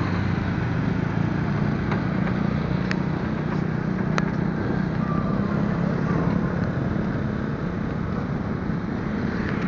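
Motorcycle engine running steadily while riding, with wind and road noise rushing over the microphone. A few light clicks come in the first half.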